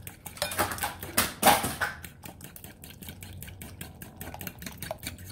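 Metal spoon beating raw eggs in a ceramic bowl, clinking and scraping against the bowl. A few louder scrapes come in the first two seconds, then a quick, even run of lighter clicks.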